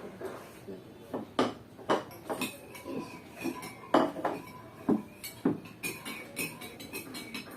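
A spoon stirring and clinking against a container while a drink is mixed: irregular sharp taps, roughly one or two a second, several with a brief ringing tone.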